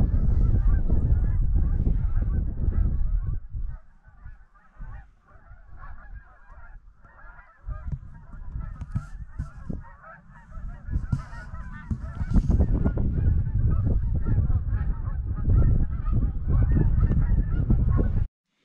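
A flock of wild geese flying overhead, many birds honking at once in a continuous overlapping chatter. A heavy low rumble on the microphone sits under the calls at the start and again in the last few seconds.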